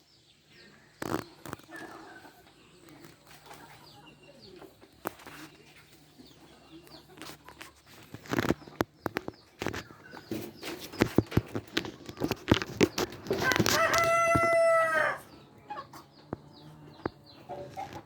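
A rooster crowing once, a single long call of under two seconds about two-thirds of the way in. Scattered sharp clicks and knocks from the flock sound around it.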